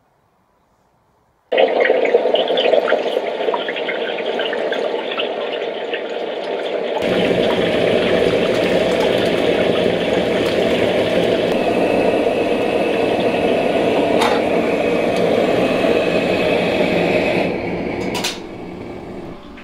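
Hot oil sizzling and crackling as a pork knuckle deep-fries in a wok, with oil ladled over its skin to blister it. The sizzle starts abruptly about a second and a half in, grows fuller about seven seconds in, and dies down near the end with a sharp click.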